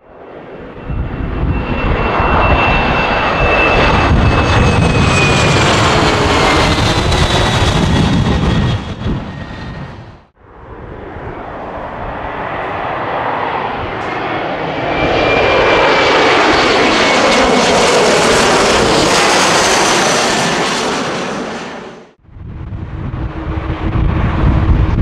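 Airliners passing close by, two in a row: each a loud rush of engine noise that builds and then fades, with a high whine that slides slightly down in pitch as the plane goes by. Near the end another stretch begins with a low rumble and wind on the microphone.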